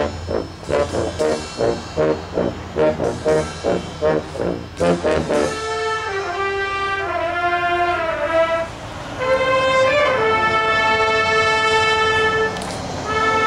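Marching band of brass and woodwinds (sousaphones, trumpets, saxophones, clarinets) playing. Short punchy chords come at about three a second for the first five seconds or so, then the band moves into long held chords.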